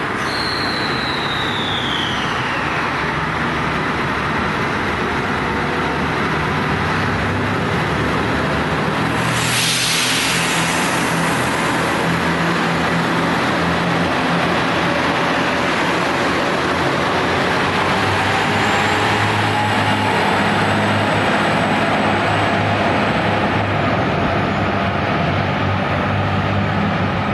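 JR Shikoku 2700 series diesel multiple unit with its diesel engines running as it gets under way, their hum rising in pitch in the second half. A high falling tone is heard in the first few seconds, and a short loud hiss comes about ten seconds in.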